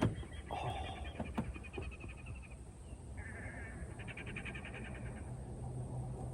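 A bird calling in two bursts of fast, high-pitched chattering trills, the first with a lower note under it.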